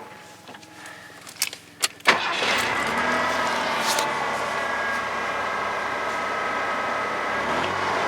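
Ford 4.9-litre (300 cu in) EFI inline-six with a new throttle position sensor. After a couple of sharp clicks, the throttle is opened suddenly about two seconds in and the engine comes straight up and keeps pulling steadily, with no hesitation.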